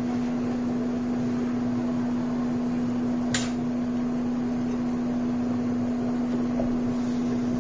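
Steady hum of a small electric motor running, one low tone over a light rush of air, with a single sharp click about three and a half seconds in.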